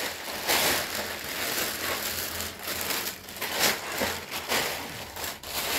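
A large plastic bag rustling and crinkling with irregular sharp crackles as it is stuffed down inside a lightweight nylon backpack, the pack's fabric rustling with it.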